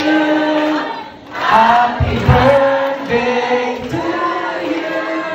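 A man singing live into a microphone, amplified through PA speakers, in phrases with held, bending notes and a short pause about a second in.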